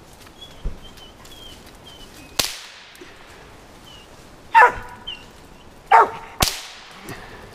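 Two gunshots about four seconds apart, each a sharp crack with a short echoing tail, fired up at a treed squirrel. Between them a dog barks twice, louder than the shots, the second bark just before the second shot.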